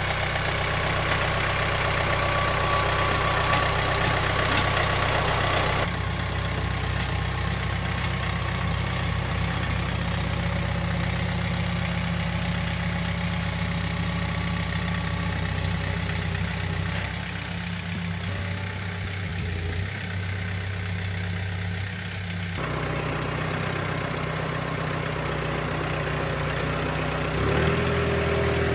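John Deere 4044M compact tractor's four-cylinder diesel engine running steadily. Its sound changes abruptly a few times, about a fifth of the way in and again near the end.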